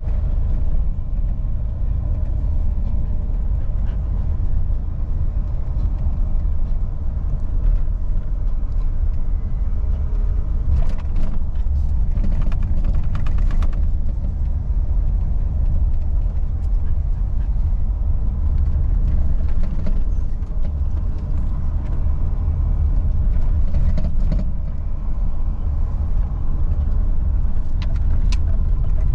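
Steady low rumble of a car driving, with a few faint clicks around the middle and again near the end.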